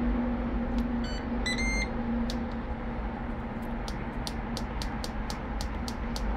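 Ninja Woodfire outdoor grill's control panel beeping as its buttons are pressed. A few short beeps come about a second and a half in, then a run of quick ticks, about three a second, as the cook time is stepped down. A steady low hum runs underneath.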